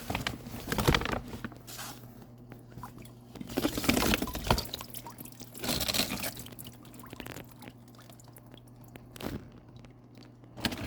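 Seawater splashing and dripping in a bucket as pieces of live rock are handled, in several separate bursts.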